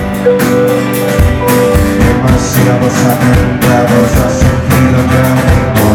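Live rock band playing loud: guitar over a drum kit, with steady drum and cymbal hits.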